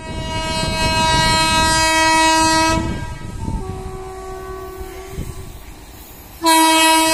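WAP-7 electric locomotive's air horn sounding as the train approaches. A loud blast lasts nearly three seconds, a quieter, slightly higher-pitched blast follows about a second later, and the loud blast starts again near the end, all over the low rumble of the train.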